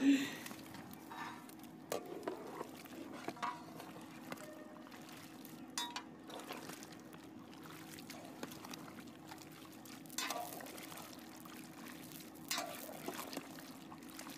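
Whole tomatoes tipped into a big iron pot of hot oil and mutton, with a splash right at the start, then the pot bubbling while a long ladle stirs with an occasional knock against the pot.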